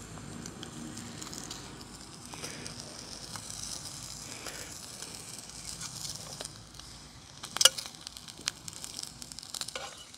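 Burger patty sizzling in a carbon-steel pan, a steady hiss with small crackles, and one sharp click about three-quarters of the way through.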